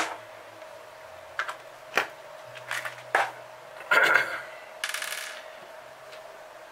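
A plastic tub of metal glow plugs and its lid being lifted and cleared off the workbench: a few sharp clicks and clinks, a louder rattle about four seconds in, and a short scrape just after.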